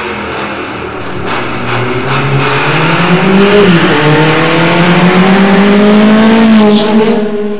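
Car engine accelerating hard, its pitch climbing steadily and growing louder, dipping briefly about halfway, then climbing again to its loudest before cutting off near the end. A few sharp cracks sound over the engine in the first couple of seconds.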